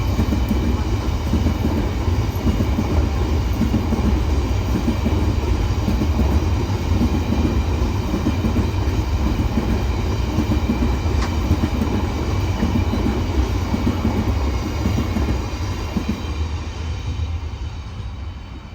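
Train rolling past with a steady low rumble and wheels clacking over the rail joints, dying away near the end.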